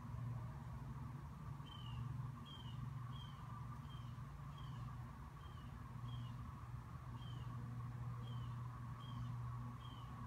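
A bird calling over and over: short, high chirps that fall slightly in pitch, about one every 0.8 seconds, starting near two seconds in. A steady low hum runs underneath.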